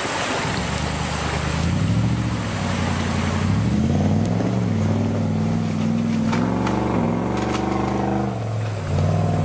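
Modified off-road 4x4's engine revving up and down repeatedly under load as it wades through a river and climbs a steep mud bank, with rushing, splashing water in the first second or two.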